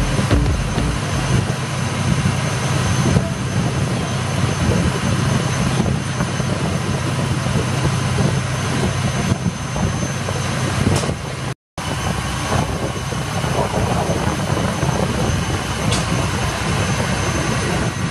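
Steady low drone of a riverboat's diesel engine under way, over a rush of water along the hull. It breaks off to silence for a moment about two-thirds of the way through, then carries on unchanged.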